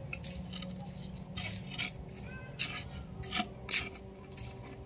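Irregular short scrapes and rustles of soil and roots being worked loose by hand in a large clay plant pot.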